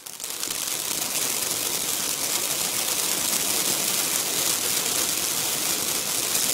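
Vanitha duck-shaped ground fountain firework burning: a steady, loud rushing hiss of the spark spray with fast crackling mixed in from its crackling stars.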